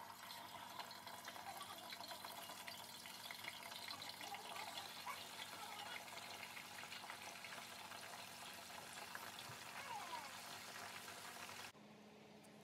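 Raw chicken wings deep-frying in hot oil: a steady sizzle full of small crackles and pops. It cuts off abruptly shortly before the end.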